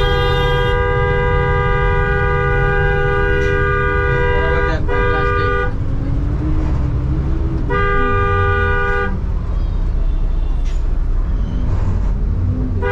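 A vehicle horn blaring in long steady blasts: one of about six seconds, then a shorter one of about a second and a half about eight seconds in. Under it runs the constant low rumble of the moving bus and road traffic.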